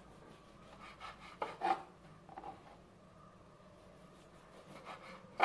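Kitchen knife cutting the crusts off white bread on a plastic cutting board: a few soft, scraping cuts, then one louder knock near the end.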